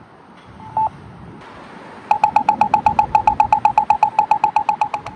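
Campbell accessible pedestrian signal push button giving a single locator beep, then about two seconds in switching to a rapid ticking of the same tone, about ten a second. This is the 'bubbling' walk indication: the walk signal has come on.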